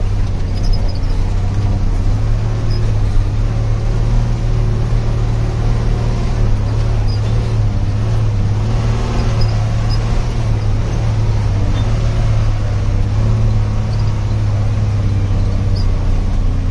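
Truck engine running with a steady low drone.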